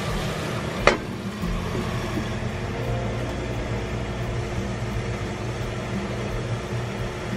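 A Tefal glass lid is set down on a frying pan with a single sharp clink about a second in, covering cucumber slices to simmer. A steady low hum runs underneath.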